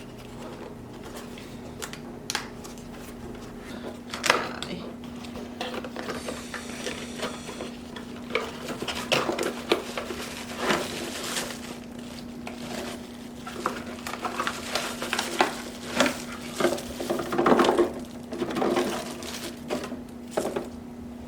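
Cardboard box and packaging being opened and handled: irregular clicks, scrapes and rustles that get busier in the second half. A steady low hum runs underneath.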